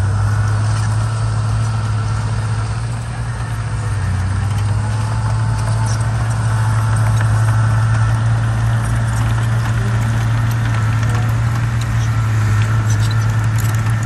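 Crawler bulldozer's diesel engine running steadily under load as it pushes earth and rock, with scattered light clicks and knocks in the second half.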